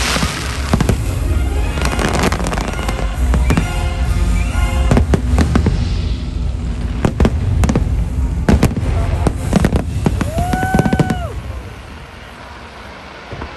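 Aerial fireworks bursting in rapid succession, a dense run of loud bangs and crackles over show music, stopping about two seconds before the end.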